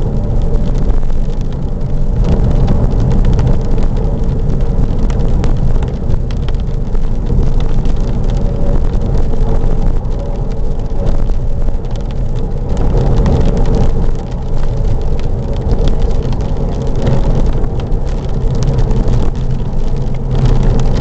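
Inside the cabin of a 2001 Porsche Boxster S driving at highway speed in rain: a steady engine drone under loud road and wind roar, with rain ticking against the car throughout.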